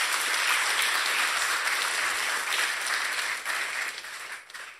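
Audience applauding, many people clapping steadily, then thinning out and dying away near the end.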